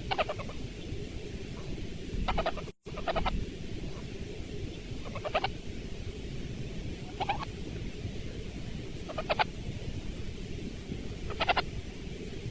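A sleeping French bulldog puppy snoring: short, high-pitched, whistling snores come about every two seconds, one with each breath, over a steady low hiss.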